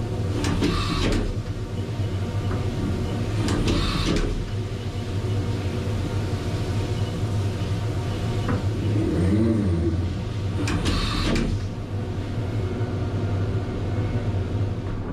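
Haas DM-1 CNC vertical mill running with a steady mechanical hum. Short hissing bursts come three times, near the start, about four seconds in and about eleven seconds in, and a brief wavering whine rises and falls about nine seconds in.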